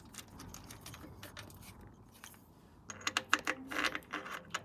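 Light metallic clicks and clinks of gearbox bolts being handled and fitted into the bellhousing. A quick run of them comes about three seconds in, after a quieter stretch with only a few faint clicks.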